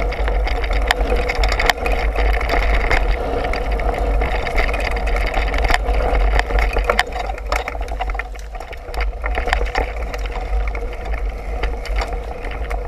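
Mountain bike ridden fast down a rough dirt singletrack, heard from a bike-mounted action camera: wind rumbling on the microphone, with the bike and camera mount rattling and knocking over bumps and tyres running on dirt.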